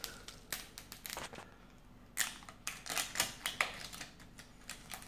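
Fingers picking at and peeling the plastic wrapping off a small LOL Surprise Lil Sisters toy ball: irregular crinkles and sharp little clicks, busiest in the middle.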